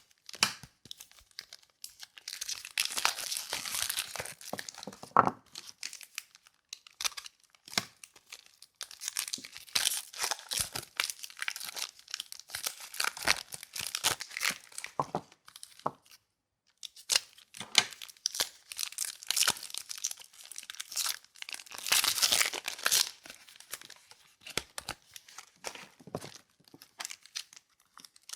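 Soap packaging being torn open and crinkled by hand, in bursts of sharp tearing and crackling with short pauses between them.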